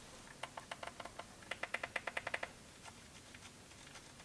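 Clicky keys on a Rii i4 mini wireless keyboard being pressed by thumb: a few light clicks, then a quicker run of them about one and a half seconds in, then a few faint ones.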